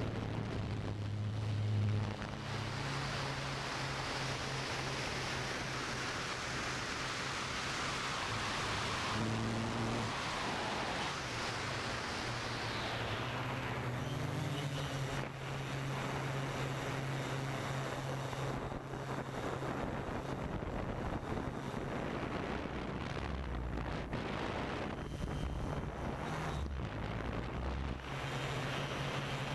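DJI quadcopter's motors and propellers humming steadily, the pitch stepping up and down a little as the throttle changes. Wind rushes on the microphone until it fades out about thirteen seconds in.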